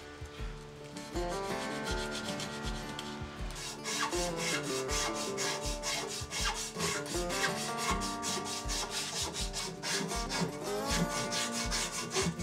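Strip of sandpaper rubbed back and forth around a wooden steering-wheel rim, quick scratchy strokes about four a second, growing stronger a few seconds in, over soft background music.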